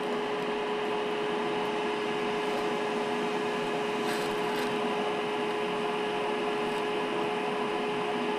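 A steady machine hum with a constant mid-pitched tone in it, and a couple of faint ticks about four seconds in.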